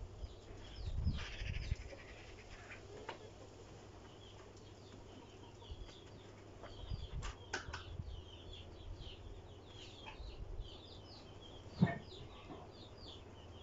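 Small birds chirping repeatedly in the background, with a few sharp clicks or knocks, the loudest near the end, and a brief rustle about a second in.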